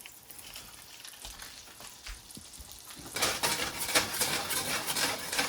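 Garlic dropped into a hot pan, frying with a loud sizzle that starts about three seconds in, after a faint crackle of the pan on the heat.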